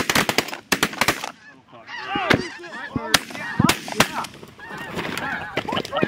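A volley of shotgun blasts, several quick shots in the first second and a few more about three to four seconds in, with a flock of geese honking overhead.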